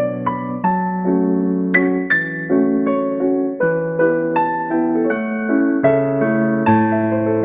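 Background piano music: a gentle melody of single notes over held bass notes.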